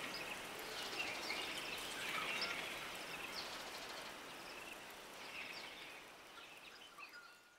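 Small birds chirping in short, scattered calls over a soft outdoor hiss, fading out near the end.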